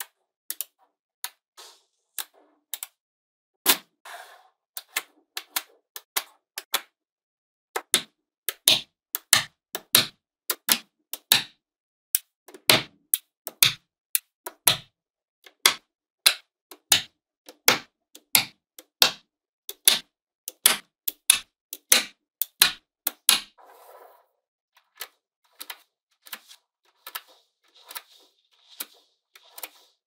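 Magnetic balls clicking sharply together as blocks of them are snapped onto a larger magnet-ball structure: an irregular run of clicks, densest and loudest in the middle, with softer scraping between the clicks near the end.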